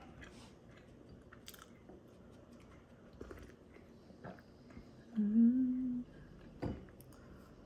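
Faint sips of coffee from a glass mug, then a short hummed 'mmm' of under a second, rising slightly in pitch, about five seconds in, followed by a sharp click.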